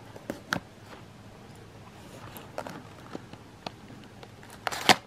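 Small cardboard toy box being handled and cut open with a folding knife: scattered light clicks and scrapes, with a louder scraping rustle near the end.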